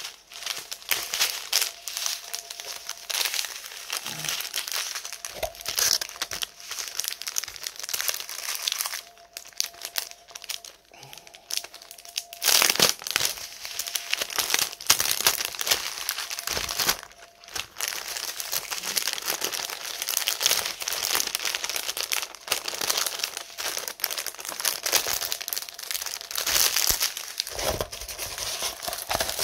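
Clear plastic packaging crinkling as it is handled, in uneven bursts of rustling, with a quieter stretch of a few seconds around ten seconds in.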